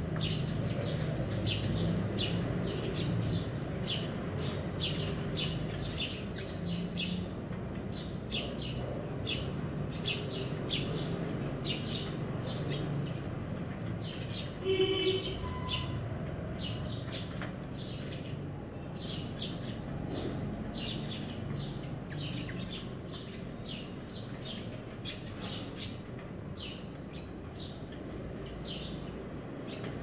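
Sparrows chirping rapidly and without pause while feeding, with one louder brief call about halfway through.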